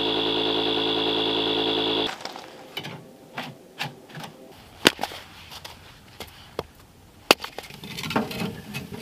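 An electric air pump runs with a steady hum while inflating a tent, cutting off about two seconds in. A string of sharp metallic clicks and knocks follows as metal stove pipe sections are fitted together, two of them much louder than the rest. Near the end there is the clatter of wood going into a burning wood stove.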